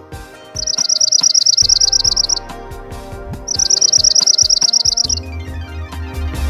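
A songbird singing two rapid, high-pitched trills, each about two seconds long with a short pause between, the notes repeating at about ten a second.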